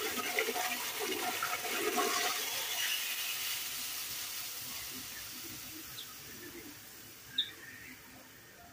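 Mint-infused oil poured from a small pan into a pot of yogurt soup, splashing and hissing on the surface. The sound is loudest at first and dies away gradually over several seconds, with one small click near the end.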